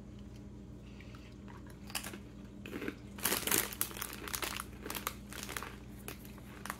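Crunchy rolled tortilla chip (Chipoys Fire Red Hot) being bitten and chewed close to the microphone, with crinkling of the foil snack bag; the crunching starts about two seconds in, is loudest a little past the middle and trails off.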